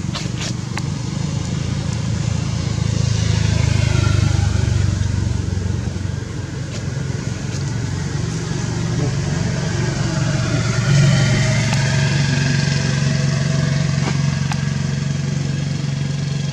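A motor vehicle engine running with a steady low hum, growing louder about four seconds in and again about eleven seconds in.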